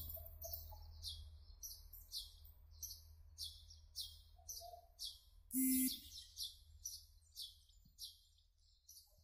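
High chirping pulses at about three a second, from birds or insects, over the low rumble of a departing diesel multiple-unit train that fades away. A short, loud tone sounds once about five and a half seconds in.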